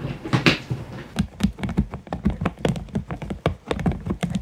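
A large dog gnawing the edge of a clear plastic storage case: its teeth click and knock irregularly on the hard plastic, several times a second, from about a second in.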